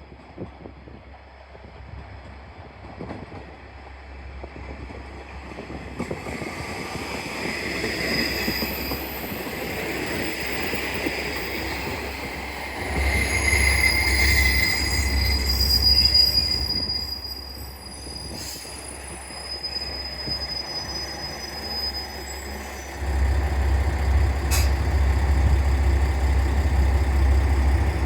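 A diesel railcar train pulling into a station, with its brakes and wheels squealing in high tones as it slows. It then stands with its diesel engine idling in a low, steady hum from near the end.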